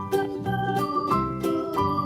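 Background music with sustained organ-like chords changing every half second or so over a steady beat.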